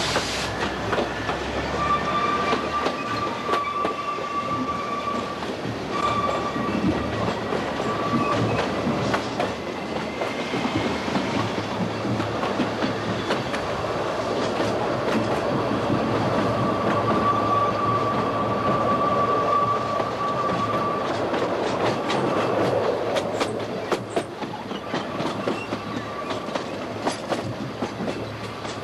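Oigawa Railway Ikawa Line train running, its wheels clicking over rail joints, with a thin, high-pitched wheel squeal that comes and goes several times.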